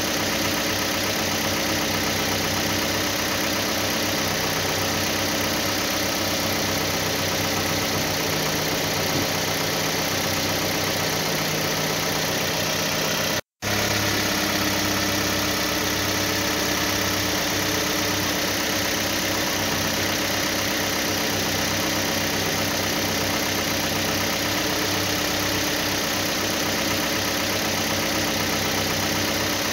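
A steady engine idling sound, standing in for the cardboard toy bus's engine. It cuts out for an instant about 13 seconds in, then carries on unchanged.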